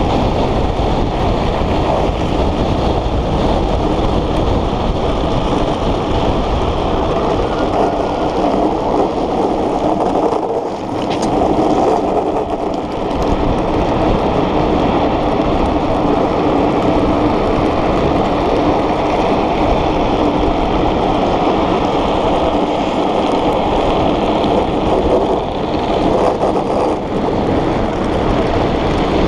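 Steady loud rush of wind over the microphone mixed with the rumble of a gravity-powered speed trike's hard wheels rolling on asphalt at high speed, with no engine.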